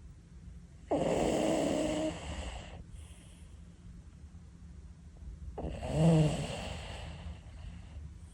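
An old cat snoring: two long snores, the first starting abruptly about a second in, the second swelling to the loudest point about six seconds in.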